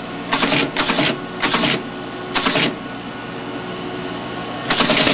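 Teletype Model 33 ASR printing as the command LIST is typed: four short bursts of its print mechanism about half a second apart, one per keystroke. Near the end comes a longer run of printing of about a second and a half as the teletype answers the command. A steady hum runs underneath.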